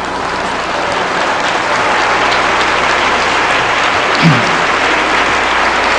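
Live theatre audience applauding, swelling over the first second or so and then holding steady, with a short falling vocal sound about four seconds in.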